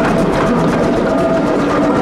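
GWR Small Prairie steam tank engine 5541 passing at close range, its wheels and motion clanking, with its carriages rattling over the rails behind it.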